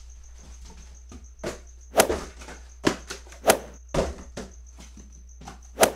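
Cardboard boxes and packaging being handled and cleared away: a series of sharp knocks and thumps, several of them loud, at irregular intervals.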